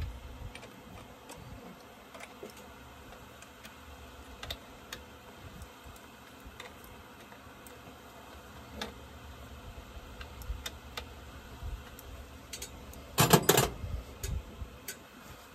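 Scattered small metallic clicks and clinks of a hand wrench and chainsaw parts being handled while an Echo chainsaw is put back together, with a brief louder clatter about 13 seconds in. The saw is not running.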